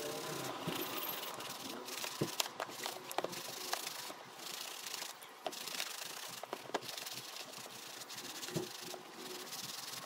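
Stiff-bristled brush scrubbing a lathered Nike Air Max 90 sneaker: continuous scratchy rubbing of bristles through soap foam, with many small sharp clicks.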